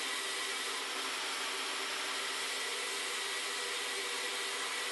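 A die grinder running with its grinding stone held against the flat side of a running 14-inch bandsaw blade, a steady whine and hiss with a few faint held tones. The stone is grinding the side of the blade smooth to cut down its flutter.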